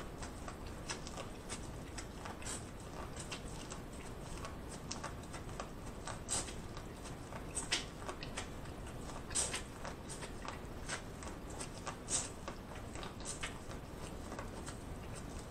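Close-up eating sounds of corn on the cob: irregular crisp crunches, wet clicks and crackles as kernels are bitten off the cob and chewed, with a few louder snaps in the middle.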